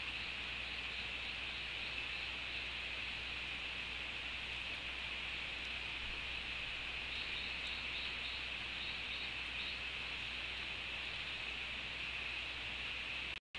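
Steady tropical insect chorus, an even high drone, over a soft hiss of rain. A few faint rapid high chirps come twice, near the start and about halfway through.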